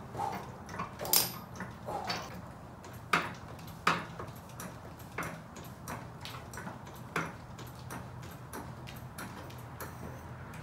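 An ATV lift raising a quad: a string of sharp metallic clicks, roughly one or two a second, over a steady low hum.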